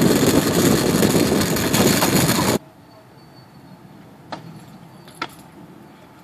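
Loud rushing noise of kick scooters rolling on asphalt with wind on the microphone while riding. It cuts off suddenly about two and a half seconds in, leaving quiet outdoor air with two sharp clacks about a second apart: a scooter hitting the court.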